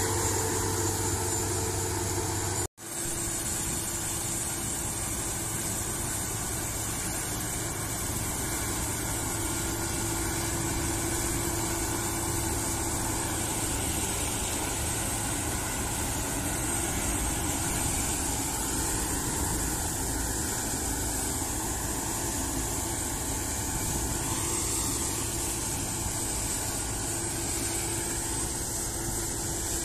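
Claas Lexion combine harvester running at work, a steady engine and threshing drone. The sound cuts out for an instant about three seconds in.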